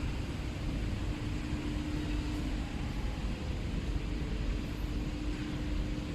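Steady drone of running factory machinery with a constant low hum tone over a rumble.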